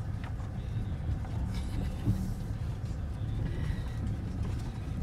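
Range Rover's engine and tyres rumbling steadily as heard inside the cabin, while it creeps over a rough grassy dirt track, with a short jolt about two seconds in.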